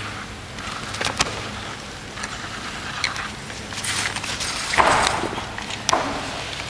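Crowd noise in a sports hall, with scattered sharp knocks and clicks and a louder burst of crowd noise about five seconds in.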